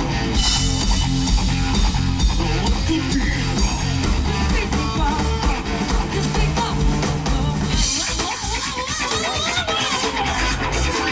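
Live band playing an instrumental passage with a full drum kit, bass and guitar. About eight seconds in the heavy low end drops away, leaving a lighter guitar line.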